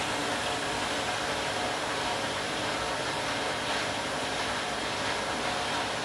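Candy washing machine with an empty drum spinning fast: a steady whir with a mechanical hum, which cuts off right at the end.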